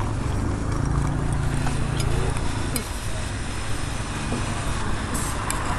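Street traffic: a vehicle engine running past over a steady low hum, with a few light clinks of glass.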